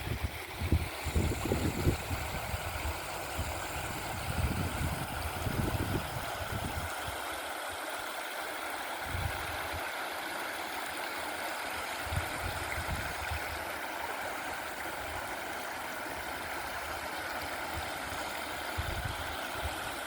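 Stream water flowing in a steady rush, with gusts of wind buffeting the microphone, most often in the first several seconds and briefly now and then after.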